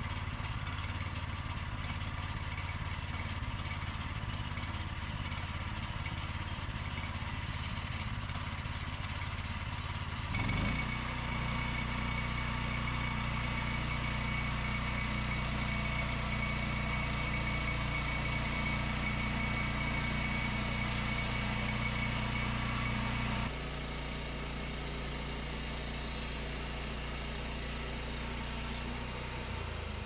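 Small gasoline engine of a Woodland Mills HM122 bandsaw mill running steadily; about ten seconds in it is throttled up to a fuller, slightly louder run with a thin high whine over it, then drops back to a lower steady note a little past the two-thirds mark.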